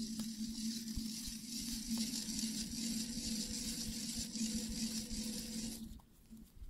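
A small motor running with a steady hum and a hiss, stopping abruptly about six seconds in.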